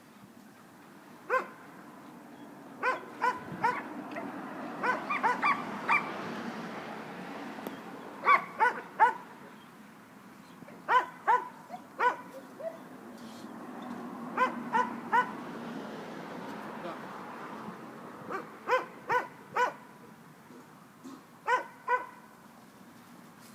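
Dog barking repeatedly in short bursts of two to four barks, with pauses of a second or two between bursts.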